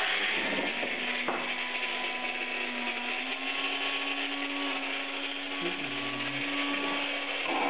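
Handheld electric angle grinder running at speed with its disc spinning free: a steady motor whine over a rushing hiss, stopping near the end.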